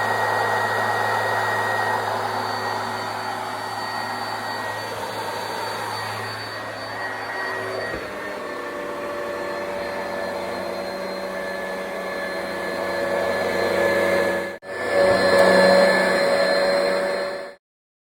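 Oreck XL upright vacuum cleaner running steadily. Its motor note shifts about eight seconds in and breaks off for an instant near the end. It is louder for a moment after that, then stops suddenly shortly before the end.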